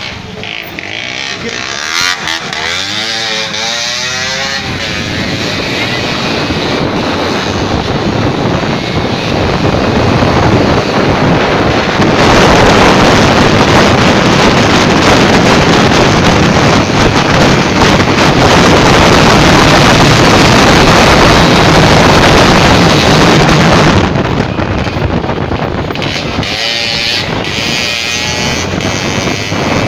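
Auto rickshaw engine running as the rickshaw is driven, with a loud steady rush of noise swelling over the middle stretch and easing off a few seconds before the end.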